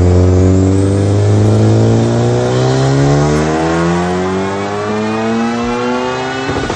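Honda Civic Type R's K20C1 turbocharged 2.0-litre four-cylinder at full throttle on a chassis dyno, its pitch rising steadily as it revs through a power pull on about 27 psi of boost. Near the end the pull cuts off abruptly as the throttle is lifted and the revs start to fall.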